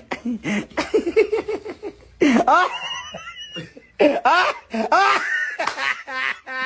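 A person laughing hard in quick repeated bursts, with two louder outbursts about two and four seconds in.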